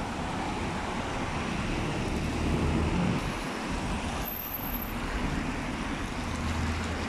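Road traffic on a wet city street: a steady hiss of tyres with the low rumble of vehicle engines, swelling twice as vehicles pass.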